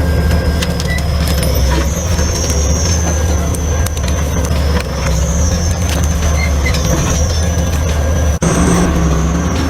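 Stump-removal excavator's engine running steadily under load, with a high, wavering metallic squeal over the low drone. There is a brief drop about eight seconds in.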